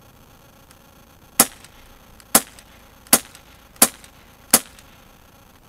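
Crosman P10 Phantom CO2-powered .177 BB pistol fired five times: five sharp cracks, each with a short tail, roughly a second apart.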